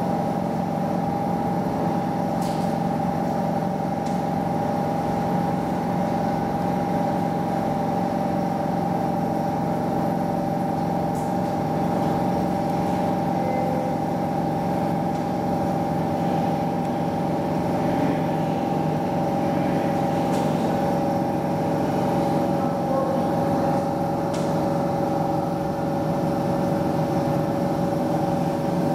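Airbus A320's CFM56 jet engines at taxi power, a steady muffled hum with two held tones, heard through the terminal's window glass.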